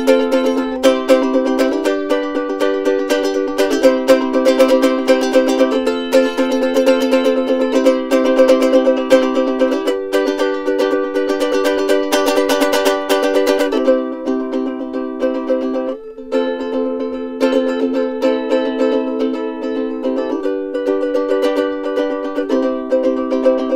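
Soprano ukulele strummed in a steady run of chords, the chord changing every couple of seconds, with a brief break about sixteen seconds in.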